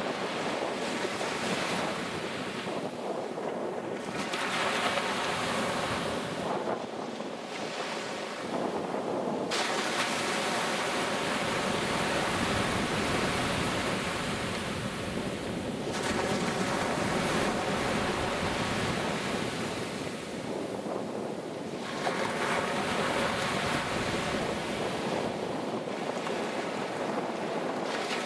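Sea surf breaking and washing in along a stony shore, swelling and easing every few seconds, with wind buffeting the microphone.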